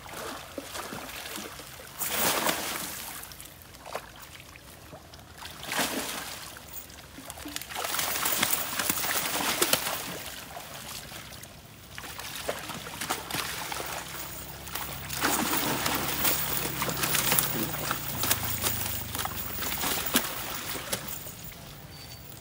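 Water splashing and sloshing as a wet cast net is hauled out of a pond onto a wooden plank landing, with water streaming and dripping off the mesh. It comes in irregular surges: several heavier splashes, then quieter trickling between them.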